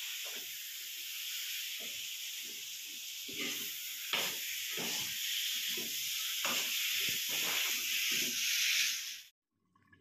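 Chicken frying in oil and spices in a metal kadai on a gas stove: a steady sizzle, with a spatula scraping and stirring the meat every half-second or so, the kosha stage of dry-frying the meat before water goes in. It cuts off suddenly near the end.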